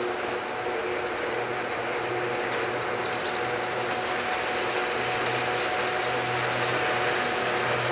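Vintage electric locomotive FZe 6/6 2002 (ex-MOB DZe 6/6) running slowly with a freight train: a steady hum with a few held tones over the rumble of wheels on rails, slowly growing louder as it approaches.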